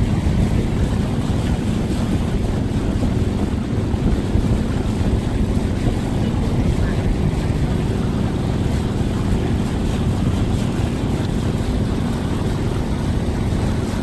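Small boat's engine running steadily while under way across the water, with wind rumbling on the microphone.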